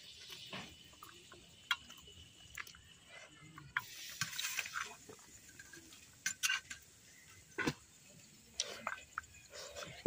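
A hand mixing cooked rice with curry on a steel plate: squishing, with scattered clinks and taps against the metal plate.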